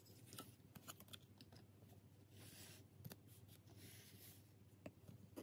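Near silence with faint scattered clicks and soft rustles of trading cards being handled and shuffled.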